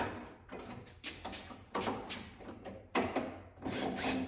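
Irregular scraping, rubbing and light knocking of parts and tools being handled and fitted during reassembly under a car, a dozen or so short scrapes with no steady rhythm.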